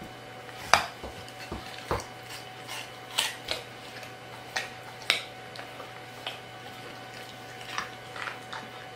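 German Shepherd gnawing on a chew toy: scattered, irregular small clicks and taps of teeth on the toy, over a faint steady low hum.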